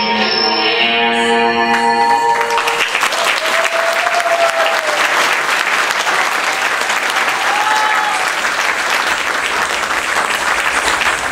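Instrumental dance music ends about two and a half seconds in, and audience applause takes over, steady and loud, for the rest.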